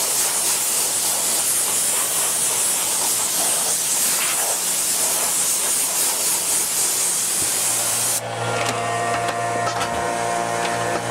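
Compressed-air blow gun hissing steadily as air is blown over freshly vacuum-formed Kydex to cool it. The hiss cuts off about eight seconds in, leaving a steady hum.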